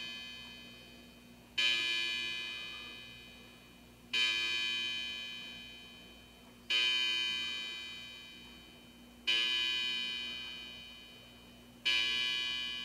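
Battery-powered quartz clock chime striking the hour through its small speaker: electronic gong-like bongs about every two and a half seconds, each starting suddenly and ringing out slowly. The tail of one strike, then five more, part of the count of six o'clock.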